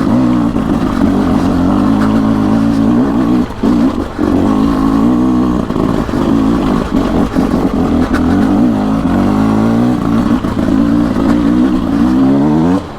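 Beta RR 300 single-cylinder two-stroke enduro engine ridden hard off-road, its revs rising and falling again and again as the throttle is worked. The revs dip briefly about three and a half seconds in, and the throttle closes near the end.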